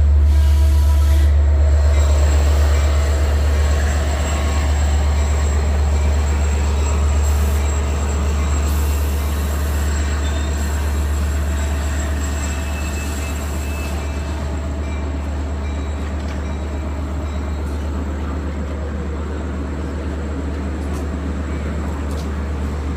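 Diesel passenger train's locomotive running with a steady deep rumble that slowly eases off in level.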